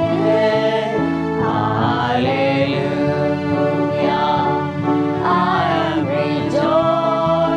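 Church congregation singing a worship hymn together, with sung notes held and wavering over an instrumental accompaniment whose low notes step in time.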